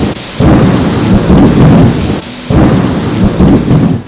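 Loud thunder rumbling over heavy rain, swelling in two long surges with a short dip between, then cutting off suddenly near the end.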